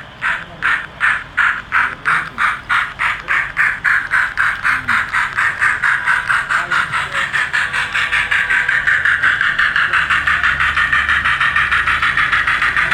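Model locomotive's sound chuffing in an even beat that speeds up steadily from about two and a half to about six beats a second as the train gets under way, with a steady whine building underneath in the second half.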